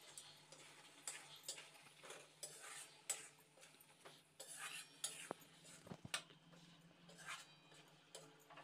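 Metal ladle scraping and clinking against a steel kadai in irregular strokes as green peas are stirred into a thick masala. The sound is faint.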